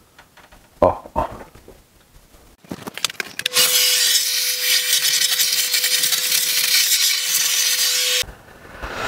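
Vacuum cleaner nozzle sucking dust off the perforated metal floor of a dust-caked PC case. A few light knocks of handling come first; then the vacuum runs with a steady hiss over one held note for about five seconds and cuts off abruptly.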